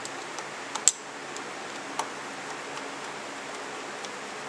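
Screwdriver tightening the small cover screws on a Carter six-screw mechanical fuel pump, clamping in a new diaphragm: a few light metal ticks and one sharper click about a second in, over a steady hiss.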